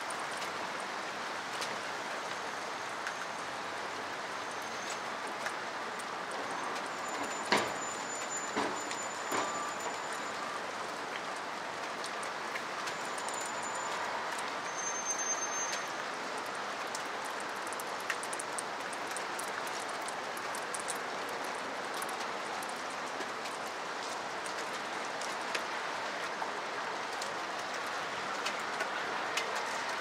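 Steady rain falling on trees and surfaces, an even hiss with scattered sharper drop ticks, one louder tick about a third of the way in.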